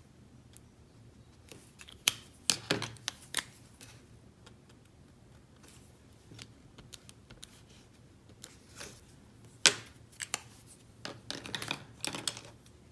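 Scattered small clicks and taps as watercolor markers, a marker cap and a clear acrylic stamp block are handled and set down on a cutting mat, with the sharpest click about ten seconds in.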